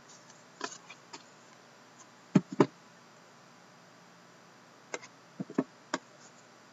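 Cardboard trading-card boxes and their plastic shrink wrap being handled: scattered clicks and knocks, with two sharper knocks about two and a half seconds in and a few more near the end.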